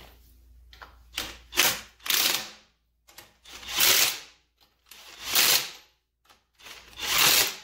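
Cordless impact wrench hammering a car wheel's lug nuts tight: two short blips, then four rattling bursts of about a second each, roughly one and a half seconds apart.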